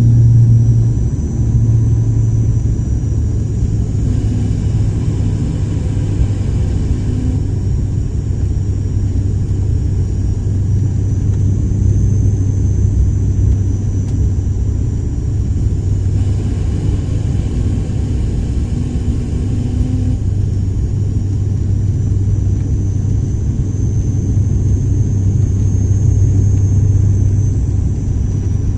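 Cabin noise of a propeller plane: the propellers' steady low drone, with a faint high engine whine that drifts slightly in pitch.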